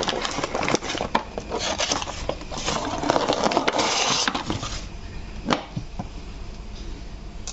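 A toy truck and its packaging being handled during unboxing: scraping, rustling and many small clicks, busiest in the first five seconds, with one sharp click about five and a half seconds in, then quieter handling.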